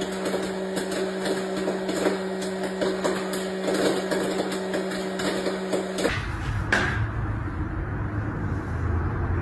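A small countertop kitchen appliance's motor running with a steady hum, with rattling and ticking over it. It cuts off about six seconds in, and a low rumble with a single click follows.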